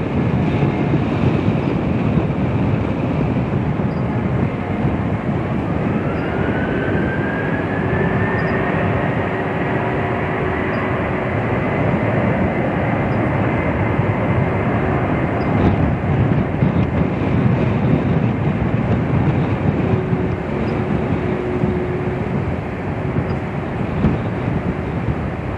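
British Airways Airbus A380's Rolls-Royce Trent 900 turbofans running at taxi power: a steady jet roar with an engine whine that rises about six seconds in and then holds steady.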